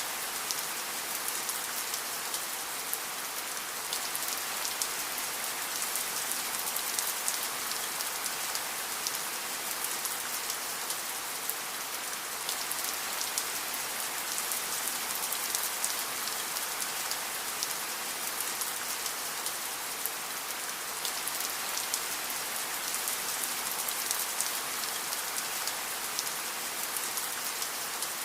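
Steady rain with dense, fine drop patter and no thunder.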